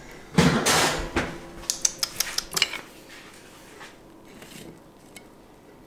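Kitchen clatter of a baking tin and utensils being handled: a brief scraping rush, then a quick run of light clinks and taps over about two seconds.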